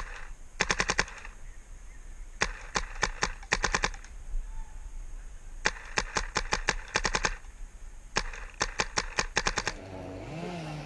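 Bob Long Victory paintball marker with a VCOM spool engine firing four rapid strings of shots, several shots a second, with short pauses between the strings.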